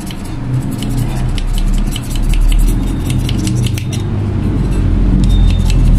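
Irregular metallic clicks and scrapes as tools and fingers work at an air cooler fan motor's end bell and shaft to free it, over a loud low rumble that grows louder toward the end.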